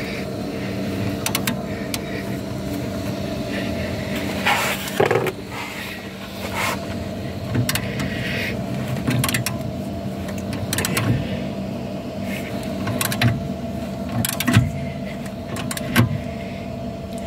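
A spanner being worked on a rusted brake caliper bolt: scattered metallic clicks and knocks, a few of them sharp and loud, over a steady low hum.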